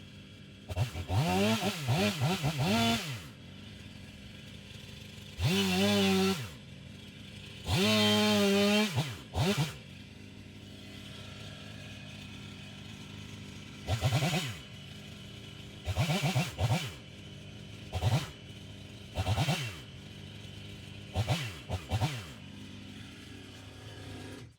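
Stihl HT131 pole saw's small engine idling and revving up to full throttle again and again, each burst rising and falling back to idle, as it cuts a dead limb. The first few bursts last a second or two; the later ones are shorter blips.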